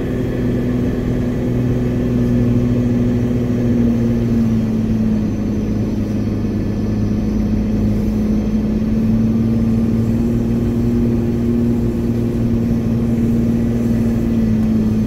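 Off-road vehicle's engine running under load, heard from inside the cab as a steady drone. Its pitch dips about five seconds in, then slowly climbs back.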